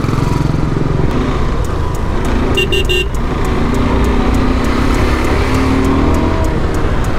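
Single-cylinder motorcycle engine running under way with wind rush, its revs rising about four seconds in as the bike accelerates. About two and a half seconds in, a vehicle horn gives three quick toots.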